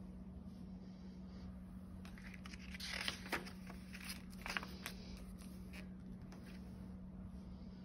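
Sheets of a folded paper dummy book rustling and crinkling as they are unfolded and pressed flat by hand, with a few sharper paper crackles about three seconds in and again around four and a half seconds. A low steady hum lies underneath.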